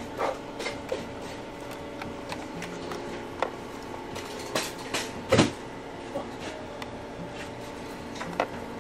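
Plastic control-panel cover of a Honda EU2000i inverter generator being handled and pressed back into its housing: scattered light clicks and knocks of plastic, the loudest about five and a half seconds in.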